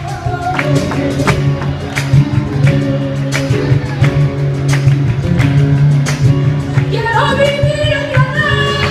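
Live flamenco tangos on piano with band: steady low notes under a regular rhythm of sharp percussive strikes, with a woman's singing voice coming in near the end.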